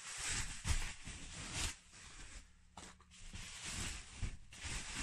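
Bubble-wrap and plastic packaging rustling and crinkling in irregular bursts as a parcel is unwrapped by hand, with a few soft knocks.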